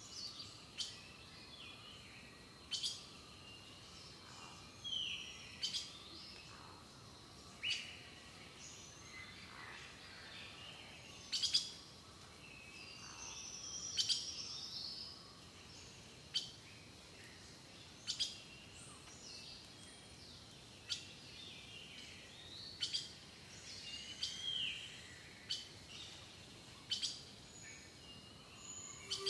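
Birds chirping and calling, with short whistled notes that slide up and down, over a sharp click every couple of seconds.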